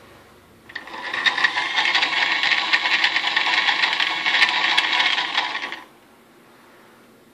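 A servo's electric motor and gear train running under radio control for about five seconds. It makes a steady, rattling buzz that starts under a second in and cuts off suddenly.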